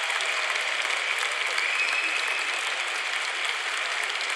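Large arena crowd applauding steadily, with no break.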